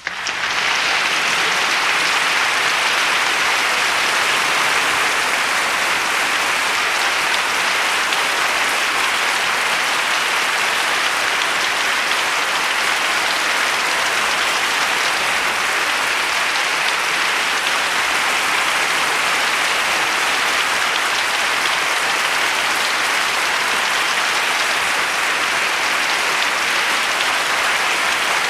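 A crowd clapping: steady, dense applause that starts abruptly right at the beginning and keeps an even level throughout.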